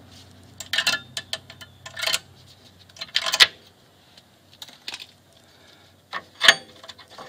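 A string of sharp metallic clicks and clinks as needle-nose pliers work the retainer spring clip off a parking-brake shoe. The loudest clinks come about three and a half seconds in and about six and a half seconds in, the second with a short metallic ring.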